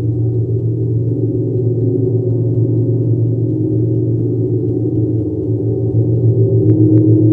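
Large hanging gong played with soft, repeated strokes of a felt-headed mallet, holding a deep, pulsing drone that swells louder about six seconds in.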